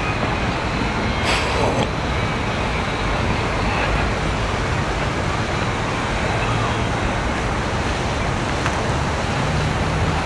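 Steady hum of city road traffic, with a brief sharp noise about a second and a half in.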